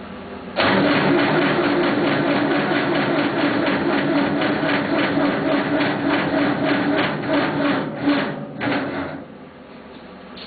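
Starter cranking the cold diesel engine of a 1976 Massey Ferguson 50D backhoe in an even, rhythmic chug for about eight seconds, then a short second burst, without the engine catching. The battery is too weak to get it started.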